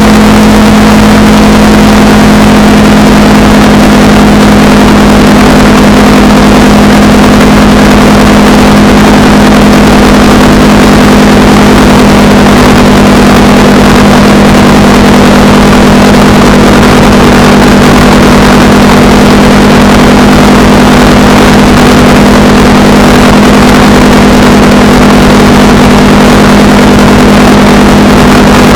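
Honda Rebel 300's single-cylinder engine running at a steady cruising speed, its note holding level, under a heavy rush of wind noise.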